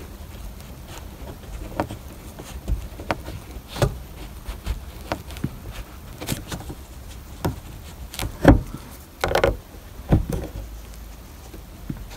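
Plastic spatula scraping and clicking against the edge of a 1997 Toyota Camry's plastic dome light lens as it is pried at: irregular small clicks and taps, the sharpest about eight and a half seconds in, followed by a brief scrape.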